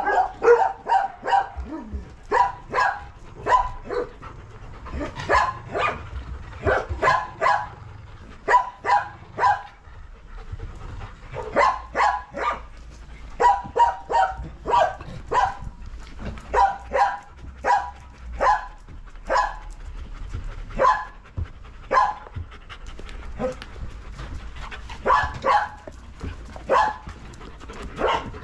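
A dog barking over and over in quick runs of short, sharp barks separated by brief pauses.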